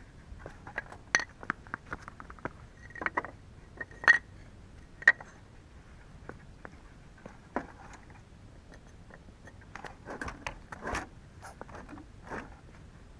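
Scattered light clicks, knocks and scrapes of hands handling tools and metal parts while working on a snowblower and its tow hitch. The sharpest knocks come about a second, four and five seconds in, and a spell of scraping comes around ten to eleven seconds in.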